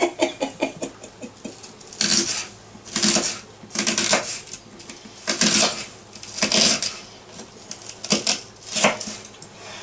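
Kitchen knife slicing an onion on a wooden chopping board: short runs of quick cuts, each knocking the blade against the board, coming about once a second.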